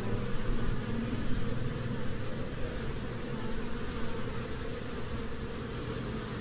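A colony of honeybees buzzing steadily on their exposed comb while it is being harvested.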